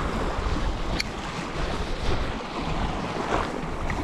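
Sea waves washing against a rocky shore, with wind buffeting the microphone in a low rumble. A single sharp click sounds about a second in.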